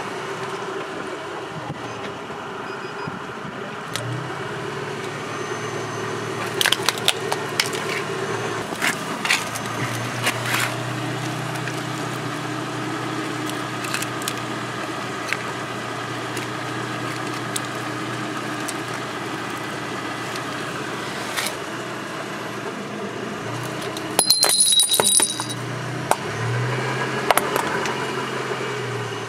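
A car engine idling steadily, with intermittent light clicks and rattles as the broken plastic pieces of a crushed mobile phone are handled, and a louder noisy burst lasting about a second near the end.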